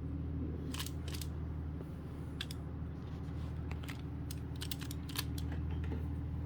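Plastic 3x3 Rubik's cube being turned quickly by hand, with irregular sharp clicks and clacks as its layers snap round during the final moves of a solve.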